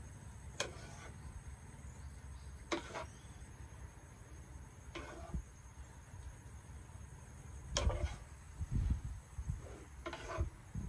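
A flat paddle scraping and turning a mound of steamed sticky rice on a wooden tray, one short stroke about every two seconds, as the rice is spread and turned to cool. A few dull low thumps near the end.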